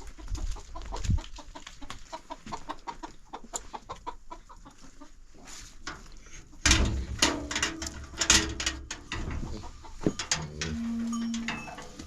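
A fast run of short, repeated farm-animal calls for the first few seconds. A louder stretch of knocking and clatter follows in the middle, and a brief steady tone comes near the end.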